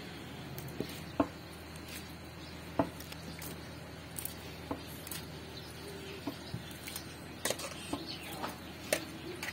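Scattered light clicks and taps of hands working shredded meat in a metal bowl and dropping it into a large aluminium cooking pot of halim, over a faint steady low hum.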